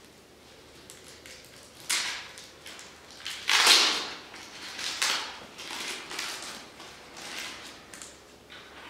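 Clear plastic crinkling and rustling as gloved hands handle it. It comes in a series of bursts, the loudest about three and a half seconds in, then smaller ones.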